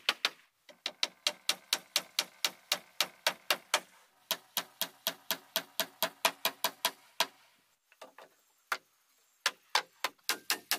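Hammer driving nails into wooden wall cladding boards, quick, regular blows about four a second, each with a short ring. The blows stop for about two seconds near the end, with only a couple of scattered knocks, then start again.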